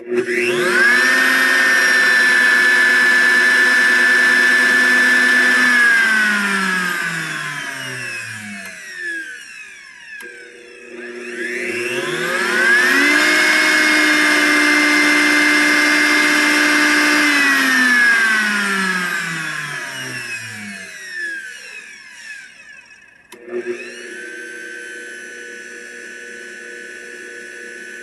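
Blendtec Designer 625 blender motor running with no jar on the base: it whines up to speed, holds a steady high whine for about five seconds, then winds down in falling pitch. It starts again, holds a slightly higher whine and winds down once more. After a click near the end it settles into a quieter steady hum.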